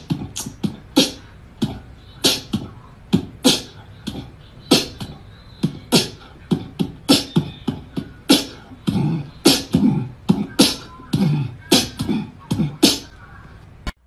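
A run of sharp percussive smacks, irregular at about two or three a second, with heavier, deeper thuds in the second half.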